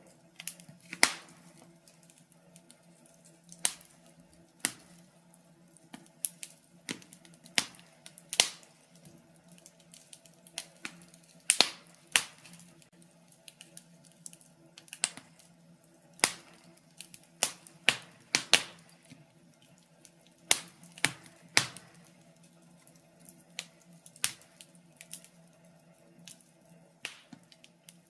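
Wood fire in a fireplace crackling, with sharp pops at uneven intervals, roughly one or two a second, over a faint steady hum.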